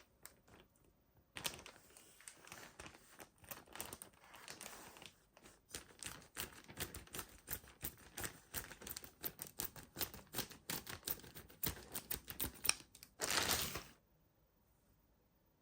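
Toy packaging being handled and opened: rapid, irregular crinkling and clicking of plastic and cardboard, ending with a louder rustle lasting under a second.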